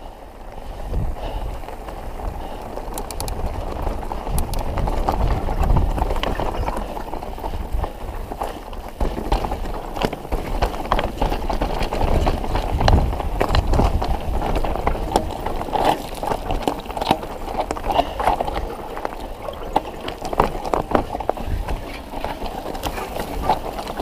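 Mountain bike rolling over a rocky trail: tyres crunching on stones, with the chain and frame rattling in quick irregular clatters at every bump, over a low rumble.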